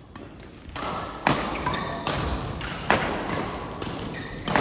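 A shuttlecock being struck back and forth in a rally: sharp hits about every second and a half.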